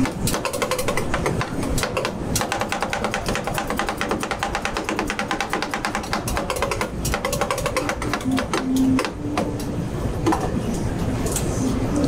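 Metal spatulas chopping and mixing an ice cream base on a frozen cold plate for rolled ice cream: rapid, even clacking of metal on metal, with a short break about halfway through.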